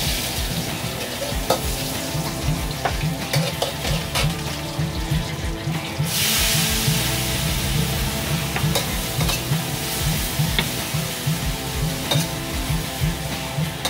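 Kitchen knife chopping and slicing spring onions on a wooden cutting board, a scatter of sharp knocks, over background music with a steady beat. A burst of hiss rises about six seconds in and fades over a couple of seconds.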